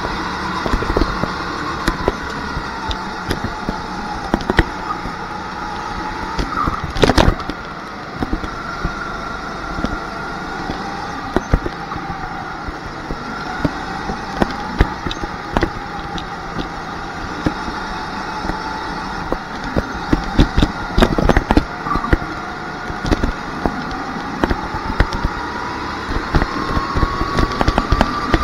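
Rental go-kart heard from onboard at racing speed, its motor note rising and falling as it brakes and accelerates through the corners. Frequent short clicks and rattles run through it, with two louder knocks about seven and twenty-one seconds in.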